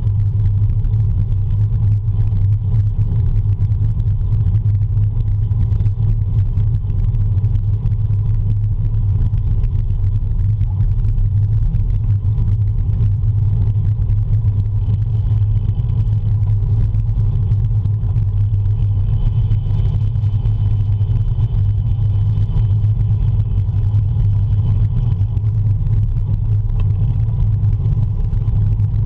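Steady low wind rumble buffeting the microphone of a handlebar-mounted camera on a road bicycle riding at speed.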